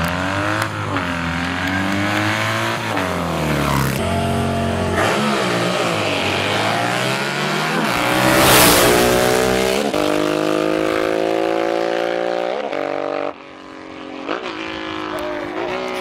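Cafe racer motorcycle engine revved up and down on the start line, then launching and accelerating hard down a sprint strip, its pitch climbing through the gears and loudest as it passes about eight seconds in. The sound drops off suddenly about 13 seconds in.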